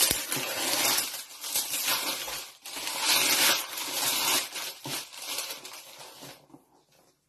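Paper and cardboard packaging rustling and crinkling as a box is handled and opened, loudest in the middle and dying away near the end.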